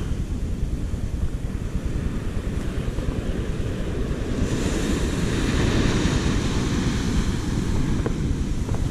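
Sea surf washing on a beach, with wind rumbling on the microphone. A wave breaks louder about halfway through.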